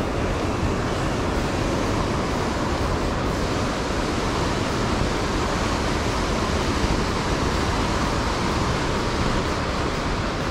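Whitewater of a mountain river rushing over rocks: a steady, loud rushing noise.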